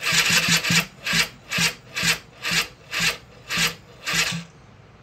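Polaris Scrambler 50's electric starter cranking its two-stroke engine during a compression test, spinning for about a second and then going in pulses about twice a second until it stops near the end. Compression reads high, partly from oil left in the cylinder, nearly more than the starter can turn over.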